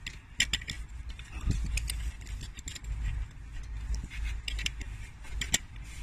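Scattered metal clicks and scrapes of a spanner levering against an Allen key under a Td5 diesel injector, working it up out of the cylinder head, over a low rumble.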